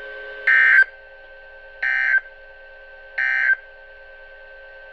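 NOAA Weather Radio EAS end-of-message signal: three short bursts of SAME digital data, buzzy two-tone warbling about a second and a half apart, marking the end of the weekly test. A fainter steady hum of fixed tones runs beneath and between the bursts.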